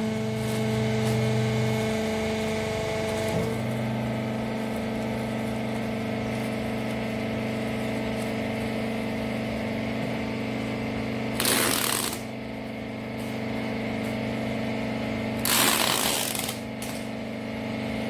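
Rag press baler's motor and hydraulic pump running with a steady hum, its tone shifting slightly about three seconds in. Two short bursts of noise, each about a second long, break in about eleven seconds in and again about four seconds later.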